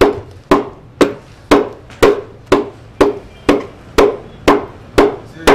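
Wooden pestle pounding dry spices in a mortar: a steady rhythm of heavy thuds, about two a second.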